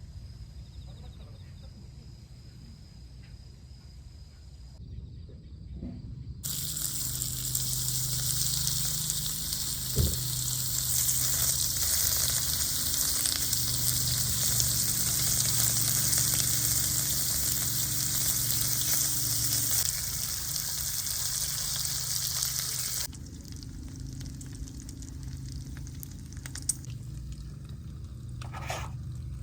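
Food sizzling in a hot frying pan for about a quarter of a minute, starting suddenly several seconds in and stopping suddenly near the end. Before it, insects trill steadily.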